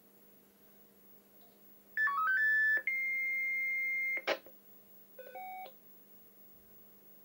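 Ericsson C702 radio's loudspeaker sounding a CCIR five-tone selective-calling code: about five short pure tones stepping quickly in pitch, then one long steady tone. The tone ends in a short burst of noise, and a brief stepped beep follows about a second later.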